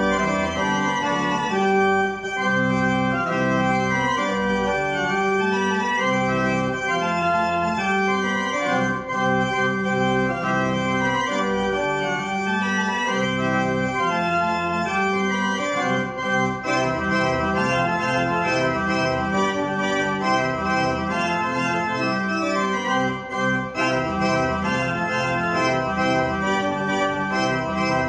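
The 1793 Johann Wilhelm Grüneberg pipe organ playing a gigue, a quick dance piece, with several voices moving at once over sustained low notes.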